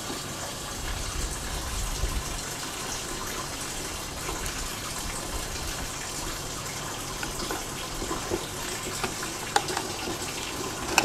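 Steady rushing background noise, with a few faint small clicks as the camera and its mounting screw are handled.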